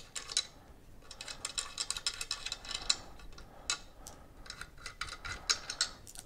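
Irregular light clicks and ticks of small screws being taken out of a plastic Scotty swivel-mount plate and handled between the fingers.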